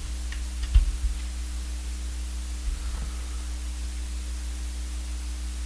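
Steady low electrical hum on the recording, with a few faint clicks and a low thump just under a second in and another soft thump about three seconds in.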